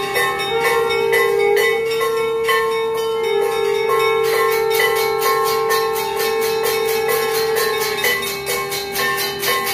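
Brass temple bell rung rapidly and continuously during an aarti, about four strokes a second, with the ringing tones held and overlapping between strokes.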